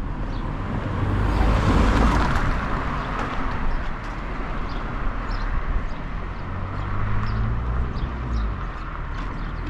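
Wind rumbling on the microphone as a car passes, its tyre and engine noise swelling and fading over the first few seconds. A low engine hum comes in about two-thirds of the way through.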